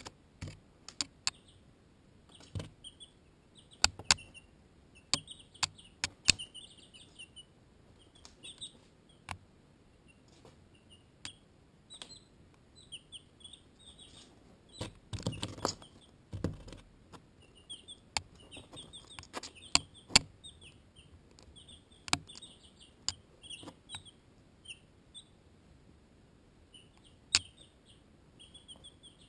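Barred Rock and Ameraucana chicks peeping over and over in short high cheeps, with sharp taps as chicks peck at the camera. About halfway through there is a longer scuffling rustle close to the microphone.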